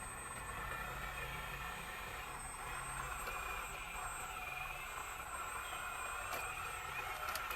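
A 1/12-scale radio-controlled model excavator running: a steady whine with slightly wavering pitch over a low rumble.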